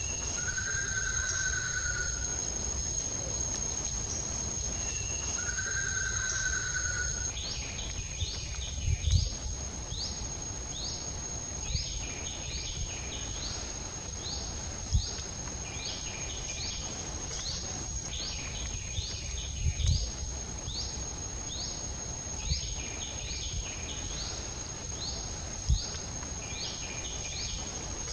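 Insects droning in a steady high tone, with two drawn-out whistled bird calls in the first seven seconds and, from about eight seconds in, clusters of quick falling bird chirps. A few dull thumps stand out.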